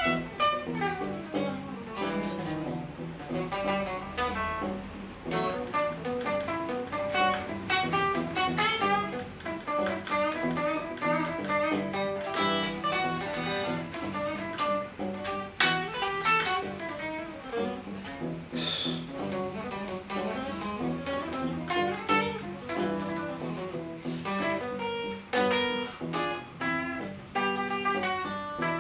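Electric guitar, a white Stratocaster-style solid-body with single-coil pickups, played in a continuous improvised passage of quick runs of notes and chords.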